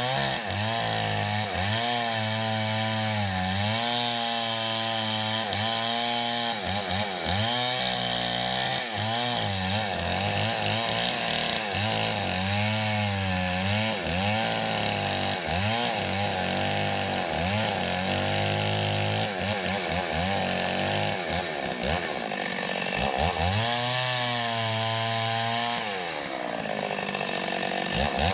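Mini chainsaw running at high revs while cutting a kapok trunk, its engine pitch dipping and recovering over and over as the chain bites into the wood. Near the end it falls back toward a lower speed, then revs up again.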